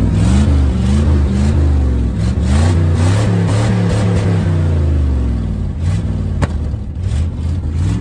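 Worn-out old pickup truck engine revved hard several times, its pitch climbing and falling, then settling back toward idle. A sharp pop, a backfire through the exhaust, cracks out about six and a half seconds in.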